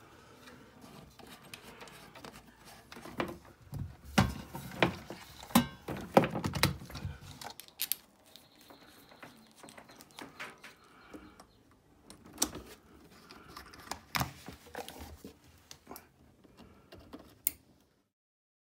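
Handling noise as coax cable and its plug are worked by hand: scattered sharp clicks and knocks over a rustling of cable and hands, busiest about four to seven seconds in.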